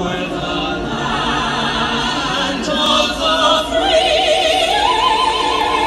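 Several voices singing together with strong vibrato over a musical backing, choir or opera style. The melody climbs higher about four seconds in.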